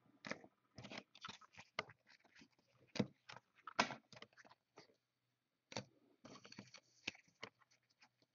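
Trading cards being flipped through by hand: faint, irregular clicks and rustles of card edges sliding against each other.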